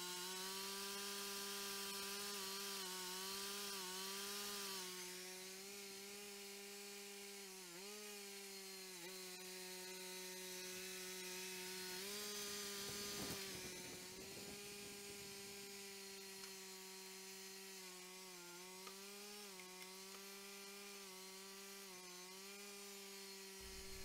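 Cook's 3238 band sawmill running on its 35 hp gas engine while the blade cuts through a log. A steady engine hum sags in pitch briefly several times as the cut loads it, with a hiss of the blade in the wood over it.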